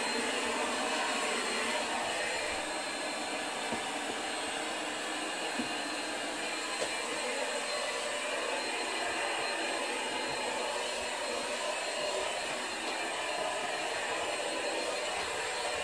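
Vacuum cleaner running with a steady, unchanging rushing noise.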